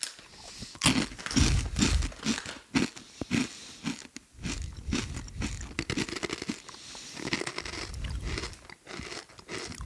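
Crunchy vegetable-flavoured Japanese kids' snack being bitten and chewed close to the microphone: a run of irregular crisp crunches, with a short pause about four seconds in.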